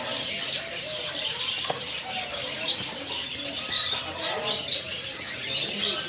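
Many caged birds chirping together in a steady chatter, with pigeons cooing and wings flapping.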